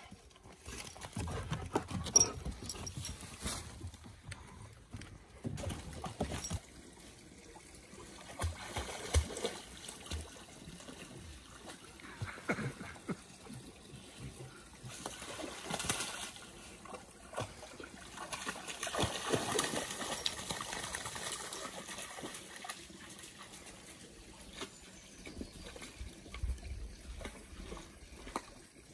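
A dog wading in a shallow muddy pond, water splashing and sloshing around its legs in irregular bursts.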